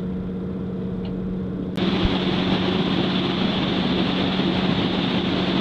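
A Nordhavn 72 trawler's diesel engines droning steadily at wide open throttle. Just under two seconds in, a loud steady rushing noise suddenly joins the engine drone.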